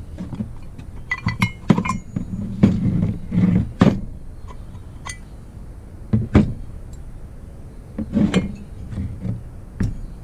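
Metal engine parts being handled and set down on a bench: a string of knocks and clinks, a few of them ringing briefly.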